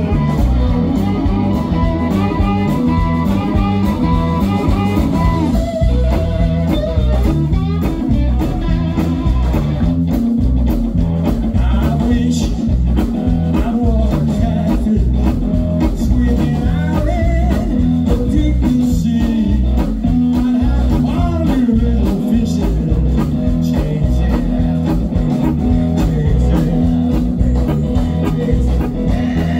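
Live blues-rock band playing: electric guitar and bass guitar over drums, with a harmonica played through a vocal microphone taking the lead later on, holding long notes.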